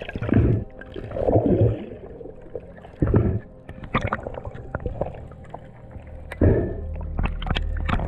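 Underwater sound through a diver's camera housing: four loud, muffled surges of water rushing past as the freediver kicks with his fins, with scattered sharp clicks in between, most of them in the second half.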